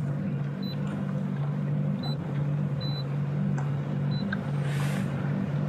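Sea-Doo FishPro jet ski's engine running steadily at low trolling speed, a constant low hum, with a brief hiss near the end.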